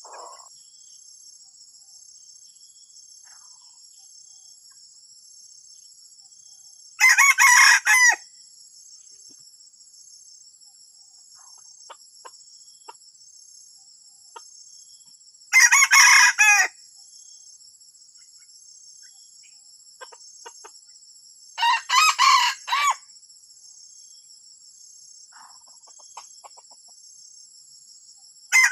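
Junglefowl cock crowing four times, about every six to seven seconds, each crow a short, choppy call of about a second broken into two or three parts. A steady high-pitched drone runs underneath.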